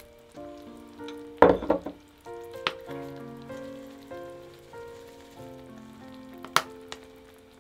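Noodles in cream sauce sizzling softly in a frying pan, with a loud wet plop about a second and a half in as a dollop of spicy sauce lands in the pan, and two sharp taps later. Light background music with a melody of held notes plays throughout.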